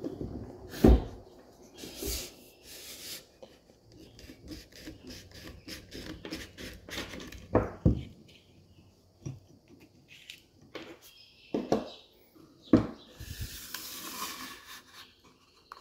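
Hard plastic and metal parts handled on a wooden bench: scattered knocks and clicks as a trolling motor's stern-mount bracket and depth collar are worked loose on the shaft, with a scraping slide near the end as the bracket comes off.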